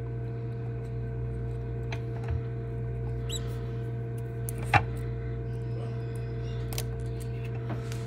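Steady low hum of the egg incubator, with faint clicks of eggshell being picked away from a hatching Moluccan cockatoo egg and one sharper click a little before five seconds in. A faint short squeak from the hatching chick about three seconds in.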